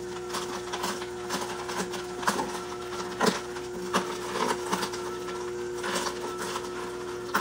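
AMZCHEF two-speed horizontal masticating slow juicer running: a steady motor hum with irregular cracks and crunches as its auger crushes carrots.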